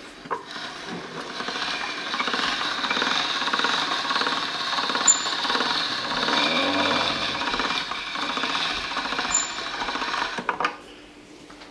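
Chrome pasta roller machine running, its rollers and gears giving a steady rapid rattling as a sheet of fresh lasagne dough is rolled through. It starts just after the beginning and stops near the end.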